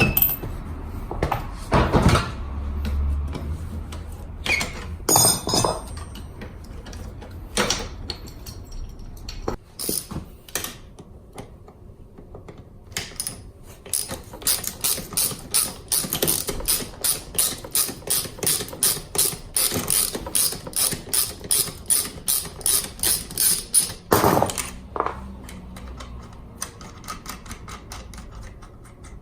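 Ratchet wrench clicking in a quick, even run of strokes, about three a second, working a fastener on a scooter's rear wheel. Scattered knocks and clanks of tools and parts come before it.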